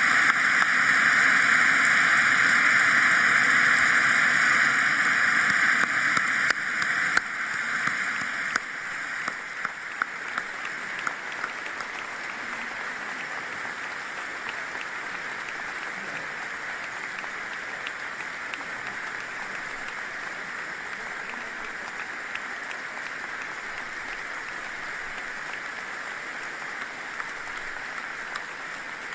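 Large crowd applauding in welcome: loud, dense clapping that eases after about eight seconds into lighter, thinner applause with single claps heard through it.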